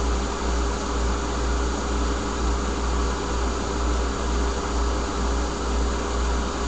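Steady low hum with an even hiss and a faint steady tone: constant background noise with no distinct event.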